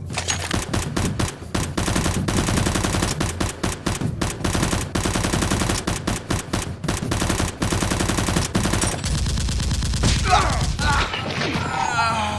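Rapid automatic gunfire sound effect, dubbed over a Nerf blaster firing, in long fast strings of shots. The firing stops about nine seconds in, and a short wavering voice follows near the end.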